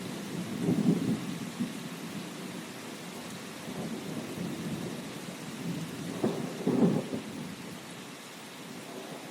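Steady rain with low rumbles of thunder, swelling about a second in and again, loudest, between six and seven seconds.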